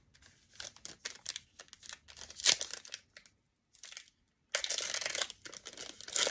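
Foil basketball trading-card packs crinkling in the hands in short rustles, then a foil pack torn open with loud tearing and crinkling from about four and a half seconds in.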